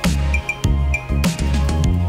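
Electronic background music with deep sustained bass and a steady beat of sharp drum hits.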